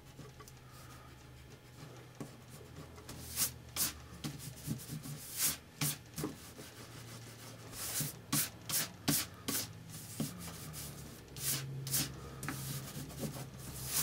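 Rubber eraser rubbing on drawing paper in quick back-and-forth strokes, coming in bursts from a few seconds in, rubbing out the last pencil lines from under an ink drawing.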